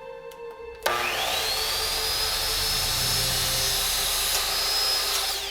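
Electric miter saw switched on about a second in. Its motor whine rises quickly to speed and runs steady while it cuts an angled line through a small piece of wood. Just before the end it is released and the whine falls as the blade spins down.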